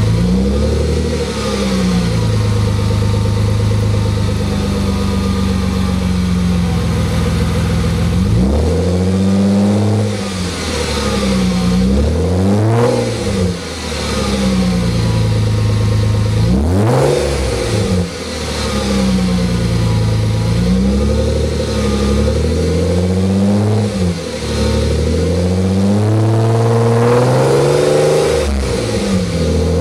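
A 1995 Mercedes-Benz C280's straight-six running through a C36 AMG exhaust with only a Bosal catalytic converter and AMG resonator fitted and no rear muffler, heard at the tailpipe. It idles for several seconds, then is revved in a string of blips, each rising and dropping back to idle every few seconds, with a loud rumbling, grumbling exhaust note.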